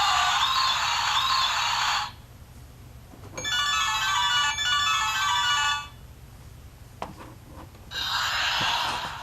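Short tinny sound clips from a Play-a-Sound book's electronic sound module played through its small speaker: a noisy two-second clip, then after a pause about two and a half seconds of bell-like ringing tones, then a click and another short noisy clip.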